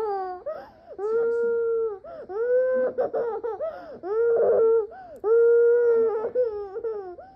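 Young child crying in a series of long wails, about four in a row, each held at a steady pitch for a second or so and falling away at the end.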